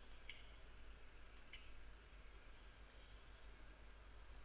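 Near silence, with a few faint computer mouse clicks: several in the first two seconds and one near the end.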